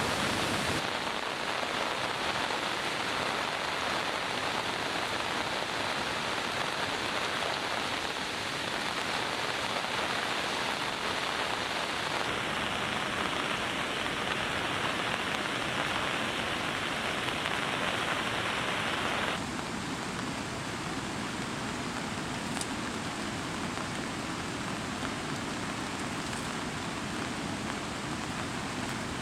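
Heavy rain falling steadily as a dense hiss. The sound shifts abruptly a few times and drops in level about 19 seconds in.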